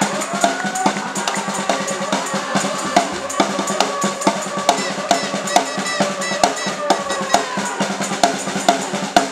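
Drumming in a steady beat of about two to three strokes a second, with a long held tone over it that sinks near the end.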